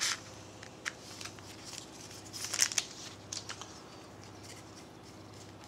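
Foil trading-card pack wrapper crinkling as a stack of cards is slid out and handled. There is a louder rustle about two and a half seconds in, then a few light clicks, and it goes quiet for the last couple of seconds.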